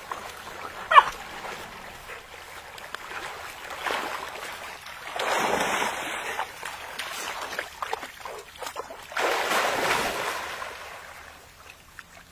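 Labrador puppies splashing and paddling in shallow pond water at a grassy bank, with two longer swells of splashing in the second half. A brief high squeak comes about a second in.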